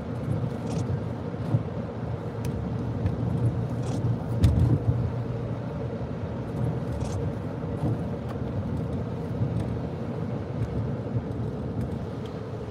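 Cabin noise of a car driving at road speed: a steady low rumble of engine and tyres, with a faint steady hum.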